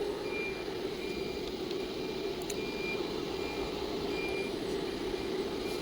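A CNC machine's controller beeping: a short, high electronic beep repeating at an even pace, a little under a second apart, over a steady low machine hum.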